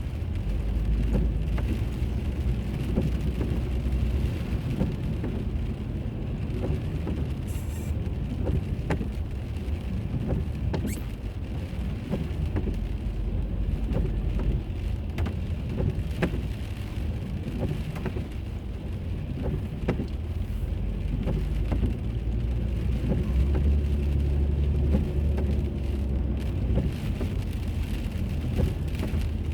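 Steady road and engine noise of a moving car heard from inside the cabin, a low rumble with scattered light ticks throughout.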